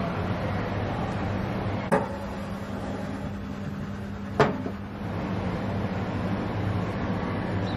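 Oven door clacks shut, the oven hums steadily for about two and a half seconds, and a second clack of the door cuts the hum off, over a steady background rumble.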